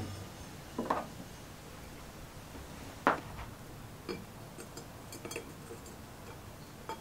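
Metal pliers clinking and tapping against a glass beaker while a spark plug is fished out of the cleaning liquid. A handful of separate sharp clinks, the loudest about three seconds in, and a quick run of small taps a little after.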